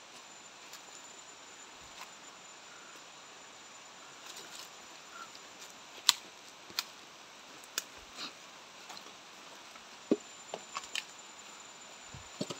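Footsteps crunching through dry leaf litter and twigs on a forest floor: a scatter of sharp crackles and snaps, mostly in the second half, over a steady hiss.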